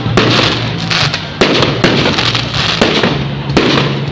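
Fireworks going off: a rapid string of sharp bangs, about two or three a second, over continuous crackling.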